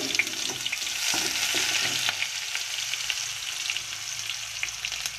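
Chopped onion and garlic sizzling in hot oil for a dal tempering (baghar) with panch phoron and a dried red chili, with scattered small pops, stirred with a wooden spatula.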